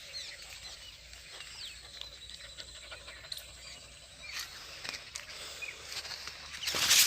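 Small birds chirping and calling with many short, quick notes sliding up and down, over quiet open-field ambience. A thin steady high tone runs for a couple of seconds mid-way, and a brief louder rustle comes near the end.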